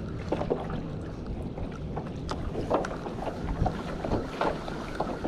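Wind rumbling on the microphone aboard a fishing kayak, with scattered small knocks and water noises against the hull.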